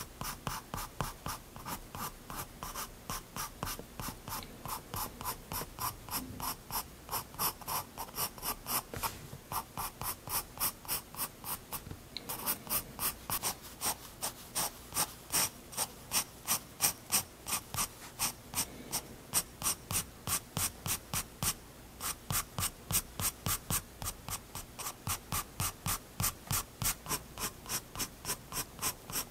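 Prismacolor Turquoise 7B graphite pencil scratching on sketchbook paper in quick, short strokes, about three a second, with a couple of brief pauses.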